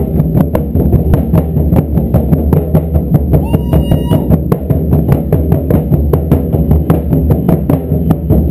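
Taiko drums pounding out a steady, fast beat: sharp strikes about four a second over continuous deep drum tones. A brief high tone sounds a little after halfway.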